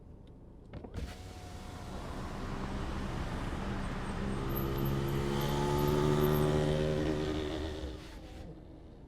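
A vehicle's engine heard muffled through a car cabin, growing steadily louder for several seconds after a click and then dropping away sharply near the end.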